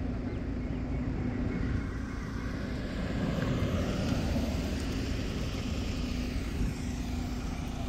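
Two cars accelerating hard in a roll race pass close by, a red Volkswagen Polo first and then a black Hyundai Verna. Their engine and tyre noise swells as each car comes past and then falls away.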